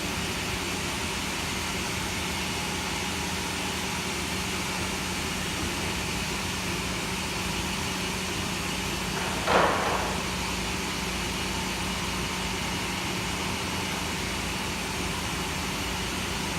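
Band sawmill with log carriage running with a steady machine hum, and one sharp knock about halfway through.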